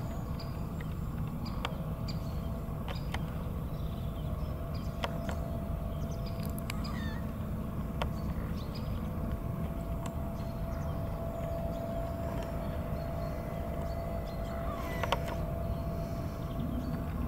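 Outdoor ambience: a steady low rumble with a faint steady hum, and scattered short bird calls and clicks.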